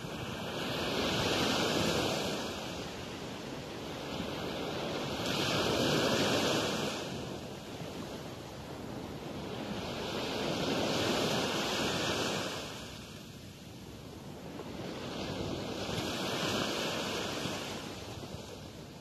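Small waves breaking on a sandy beach and washing up the shore, the surf swelling and fading four times, about every five seconds.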